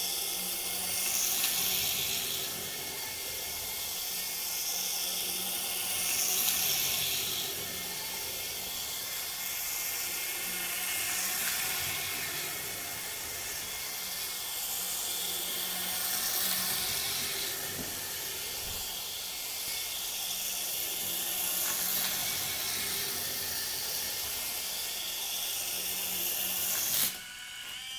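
Battery-powered Power Trains toy locomotive running laps of plastic track with its small electric motor whirring and wheels rattling, growing louder and fading about every five seconds as it passes and goes away. The sound cuts off shortly before the end.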